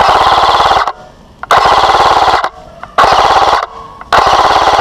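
Airsoft rifle firing on full auto, close and loud: four quick bursts of rapid shots, each about a second or less, with short pauses between them.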